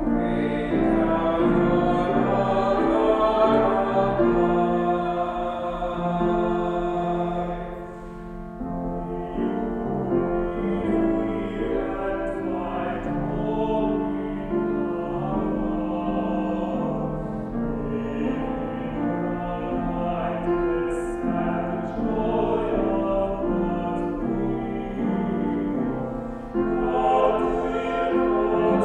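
Three voices, one woman and two men, singing together from music in sustained phrases. The sound eases briefly between phrases about eight seconds in and again near the end.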